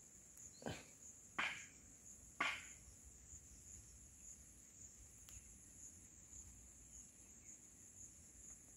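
Insects chirping steadily in a high, evenly pulsing drone. Three short rustles come in the first few seconds.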